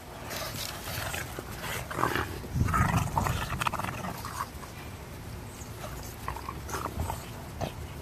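An English bulldog puppy and an adult English bulldog play-wrestling, mouthing at each other with throaty dog noises and scuffling on the cot. The loudest, deepest stretch comes about three seconds in.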